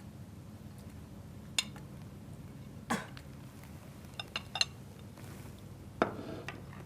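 Scattered sharp clinks and knocks of metal kitchen utensils against a pot: a few single strikes, with a quick run of three about halfway through, over a faint steady low hum.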